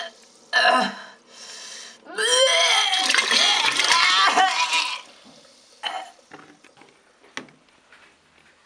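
A voice crying out: a short cry, then long wavering wails that sweep up and down in pitch. It goes quiet about five seconds in, leaving a few scattered knocks.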